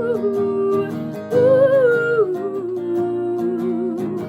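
A voice singing the song's melody on a wordless "ooh" over strummed acoustic guitar. One phrase ends near the start, a second begins about a second and a half in, and it settles into a long, lower held note with a slight waver.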